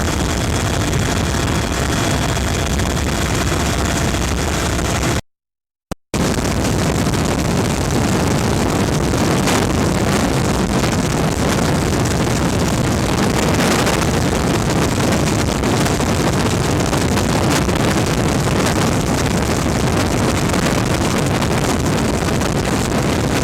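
Loud, steady rush of engine and wind noise, cut off by a brief total dropout about five seconds in before it resumes unchanged.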